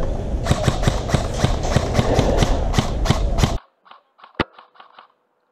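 Footsteps crunching and rustling through dry leaf litter on a forest floor, about four steps a second, over heavy rustling. The sound cuts off abruptly about three and a half seconds in, leaving near quiet broken by a few faint sharp clicks.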